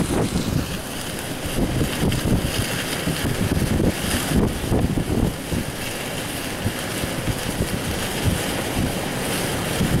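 Strong gusty wind buffeting the microphone: an uneven low rumble over a steady rush of wind.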